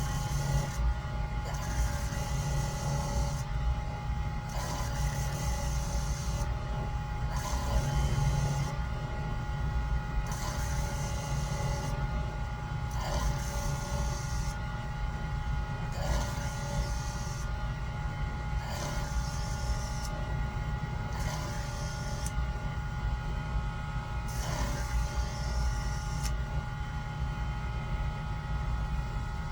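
Typhoon shear-sharpening machine running with a steady motor hum, while a shear blade is worked on its spinning hone in repeated strokes, a hiss coming and going every two to three seconds.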